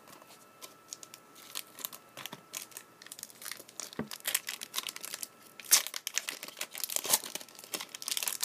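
Trading-card pack wrapper crinkling and being torn open, with scattered crackles that grow denser and louder in the last few seconds.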